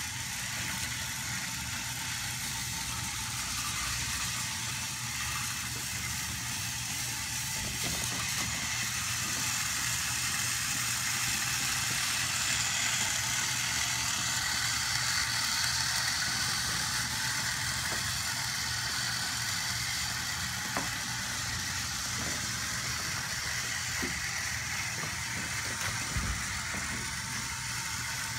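Several small battery-powered toy train engines running on plastic track, their motors and wheels making a steady whirr, with a few light clicks near the end.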